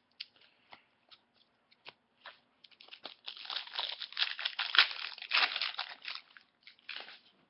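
Foil wrapper of a hockey trading-card pack crinkling and tearing open, with a few light clicks of card handling before it.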